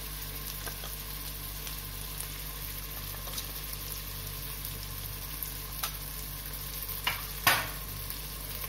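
Onion and spice masala sizzling steadily in hot mustard oil in an aluminium pressure cooker. A few sharp taps of a spoon against the cooker come near the end, the loudest about seven and a half seconds in.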